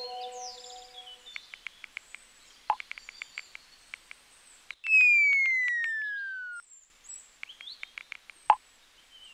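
Short runs of phone keyboard taps with birds chirping in the background. About five seconds in, the loudest sound comes: a whistle-like sound effect that slides steadily downward in pitch for nearly two seconds and cuts off suddenly.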